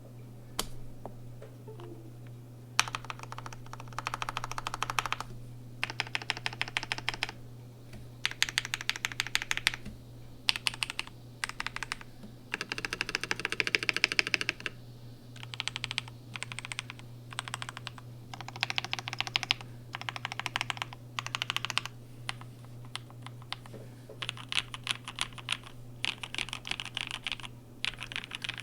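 Typing in fast bursts on a KBD67 Lite R2 hotswap mechanical keyboard fitted with lubed and filmed JWK black linear switches, with short pauses between the runs of keystrokes.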